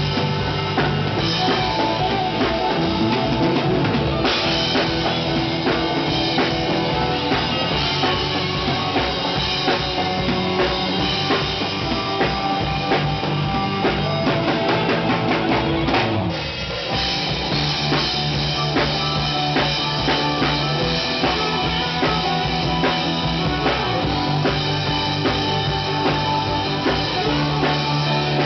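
Rock-style band music played loud through a sound system, with a driving drum kit, bass drum and guitar. The music thins out briefly about halfway through, then carries on.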